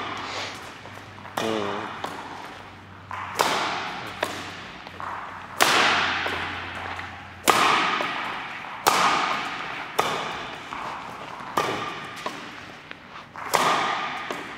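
Badminton rackets striking a shuttlecock in a slow rally, about ten sharp cracks at irregular intervals of one to two seconds, each trailing off in the echo of a large hall.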